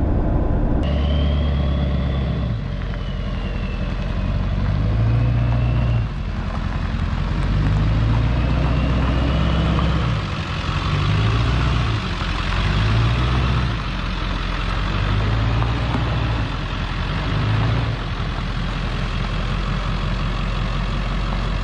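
Ford F250 Super Duty's 7.3-litre diesel engine running with a steady low rumble that swells and eases every second or two, and a faint high whistle that rises and falls twice.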